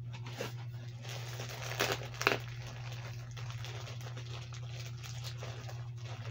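Packaging rustling and crinkling as yarn is taken out of a shipping box, with two sharper crackles about two seconds in, over a steady low hum.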